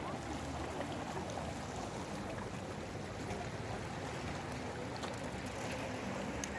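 Calm sea water washing and lapping against a rocky shoreline, a steady wash of water noise.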